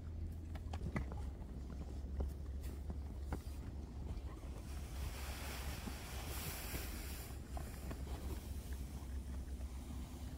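Wind buffeting the microphone in a steady low rumble, with a stronger gust of hiss from about five to seven seconds in. Scattered small clicks and crunches of pigs eating from feed pans.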